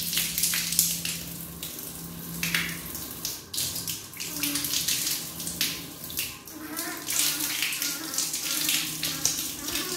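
Water running from a wall-mounted bathroom mixer tap and splashing unevenly over a hand held under the stream.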